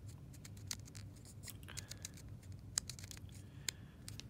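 Faint, irregular small clicks and taps of plastic Heroclix figure bases being handled on a wooden tabletop, over a low steady hum.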